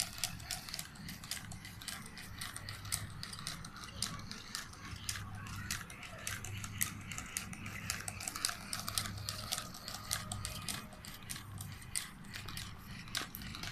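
Toy monkey's geared mechanism running: rapid, uneven clicking over a low steady hum.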